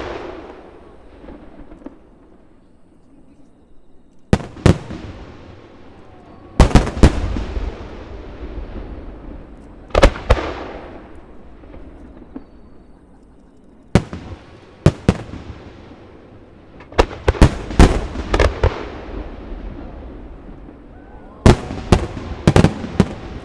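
Aerial firework shells of a starmine barrage bursting: sharp booms, some single and some in quick clusters of several. Each boom is followed by a long rolling echo that slowly dies away.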